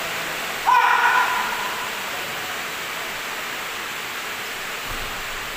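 Steady hiss of a large sports hall during a badminton rally. About a second in, a brief high-pitched squeal sounds once and fades.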